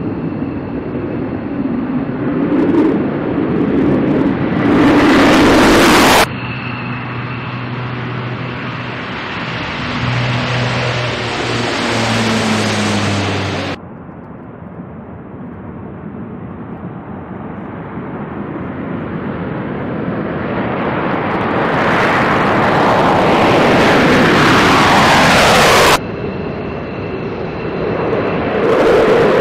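Jet engines of military aircraft taking off, one after another. The noise swells as each jet rolls and climbs, with abrupt cuts between takeoffs; the later ones are a B-2 Spirit bomber and an F-15E Strike Eagle.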